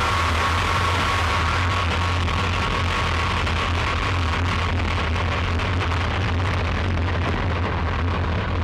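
Harsh noise music: a dense, unbroken wall of hissing static over a steady low drone, with a faint high tone that fades out about halfway through and the hiss growing duller.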